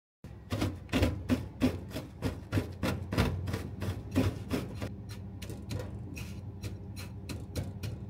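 Chocolate cookies in a plastic bag being pounded with a rolling pin on a board: regular heavy knocks about three a second. From about five seconds in come lighter, sharper taps as the crumbs are pressed into a metal tart tin with a steel cylinder.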